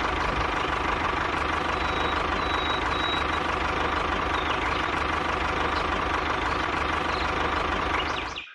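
Engine running steadily with a rapid low pulse, cutting off abruptly near the end.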